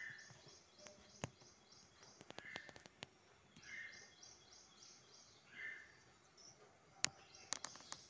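Faint bird calls: a short call repeats every couple of seconds over quick runs of high chirping notes. A few sharp clicks cut in, the loudest about seven seconds in.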